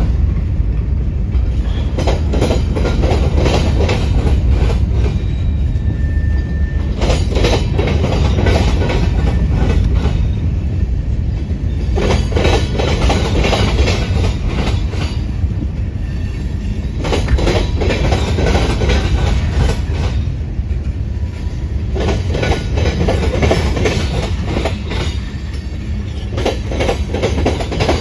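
Union Pacific freight train's covered hopper and tank cars rolling past, a steady low rumble broken every few seconds by clusters of clickety-clack as the wheels pass over the track.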